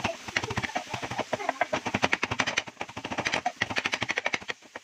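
Rapid repeated strikes of a steel tumbler's rim chopping parotta and egg against a granite-coated pan, the kothu action of making kothu parotta. Many strikes a second, with a short break near the end.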